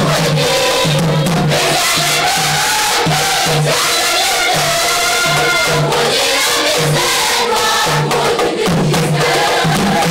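A women's church choir singing together in unison, with hand claps and a drum beating about twice a second.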